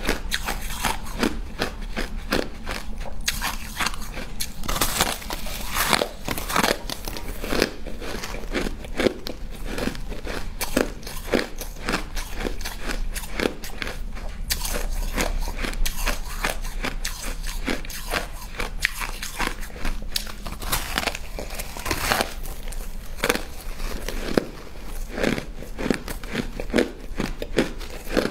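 Close-up biting and chewing of a frost-covered block of pink ice: a continuous run of crisp crunches and crackles.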